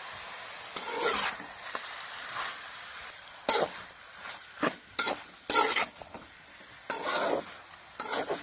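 A flat metal spatula scrapes and stirs chicken pieces, tomato and onion around a metal kadai in irregular strokes, over a low sizzle of the frying.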